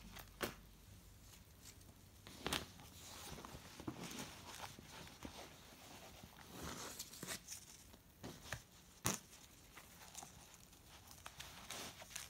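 Faint rustling of paper, lace and fabric as a handmade junk journal's pages and tag bundles are handled, with a few sharp ticks and taps, the loudest about nine seconds in.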